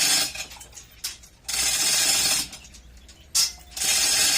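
A 1-ton manual chain block being hand-pulled to hoist a generator engine: rattling chain and clicking ratchet in spells of about a second, with short pauses between pulls.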